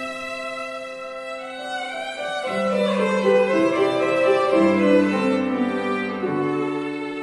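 Violin played with piano accompaniment: sustained bowed notes over piano chords, swelling louder through the middle and easing off toward the end.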